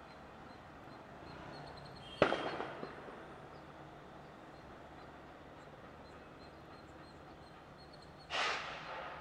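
Two sudden bangs against a quiet outdoor background: a sharp, loud one about two seconds in that echoes briefly, and a second, softer one near the end.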